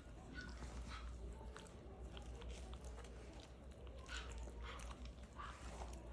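Young Australian cattle dog puppies mouthing and chewing: faint scattered smacks, clicks and rustles over a steady low hum.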